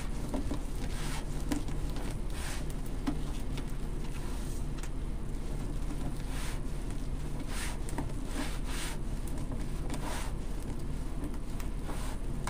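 Scattered soft rustles of plastic deco mesh being scrunched by hand and pushed into a wreath frame, over a steady low background hum.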